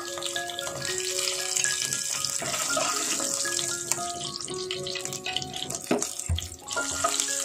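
Hot mustard oil sizzling in a frying pan, a steady hiss, under light background music of short held notes. A single clink comes about six seconds in.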